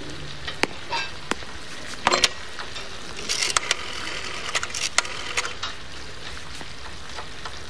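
Scattered clicks and clinks over a steady low hiss, as of restaurant kitchen clatter, with an old black desk telephone being handled and its receiver lifted; the clicking is busiest about three to four seconds in.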